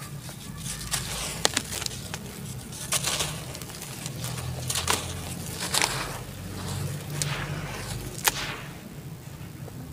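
Hands sloshing and swishing through muddy water in a basin, breaking up clumps of dry red dirt as it soaks in. The sound is a series of sharp, splashy strokes, a little more than one every second on average.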